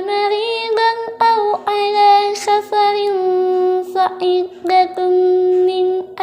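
Quran recitation in a high voice: long, held, ornamented notes with short breaks for breath.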